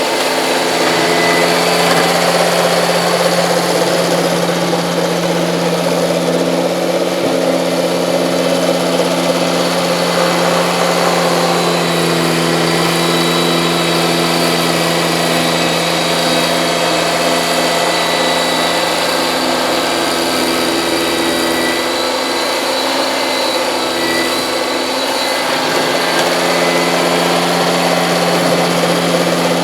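Kubota compact tractor's diesel engine running steadily while driving a front-mounted snowblower, its note sagging briefly about three-quarters of the way through and then recovering.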